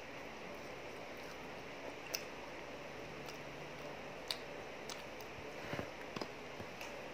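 Eating sounds: a few short, sharp clicks and smacks from chewing and utensils, spread out over a steady low hiss.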